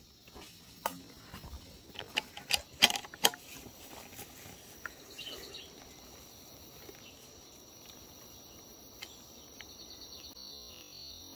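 Outdoor ambience with a steady high-pitched insect drone. A handful of sharp clicks and knocks in the first few seconds come from handling the camera and scope.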